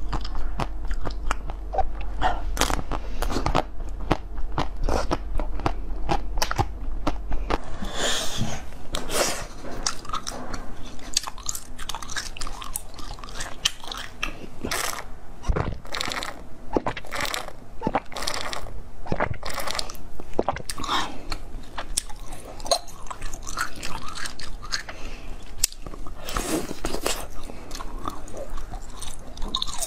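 Crunching bites and chewing of frozen sweets, many sharp crunches in quick succession throughout. First it is a blue frozen ball, then, after a cut about seven seconds in, pastel-coloured frozen cubes bitten at their corners.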